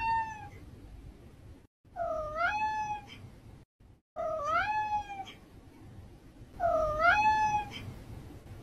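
Domestic cat meowing four times, about two seconds apart, each a short questioning call that dips and then rises in pitch.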